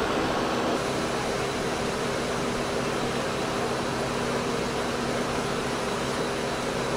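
Lockheed C-130J Hercules turboprop engines and propellers running, a steady drone with faint steady tones under an even rushing noise.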